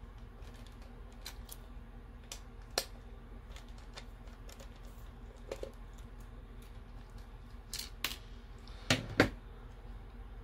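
Small scattered clicks and ticks of a precision screwdriver backing two screws out of a 3DR Solo drone's plastic battery tray, with light knocks of the plastic being handled. The loudest, a pair of knocks, comes about nine seconds in.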